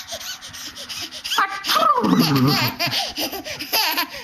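A young child laughing in a run of short, pitch-bending bursts, loudest about a second and a half in.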